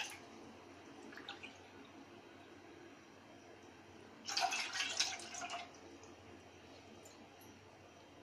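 A cup of water being poured into a cooking pot, splashing for about a second and a half starting about four seconds in.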